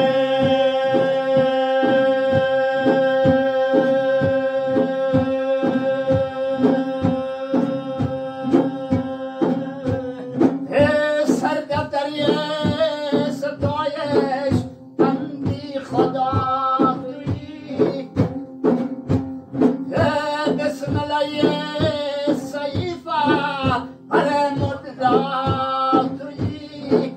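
Pamiri maddoh devotional music: a male voice holds one long steady note over a regular drum beat, then about ten seconds in a melody with quick, ornamented note changes takes over, the drum beat continuing.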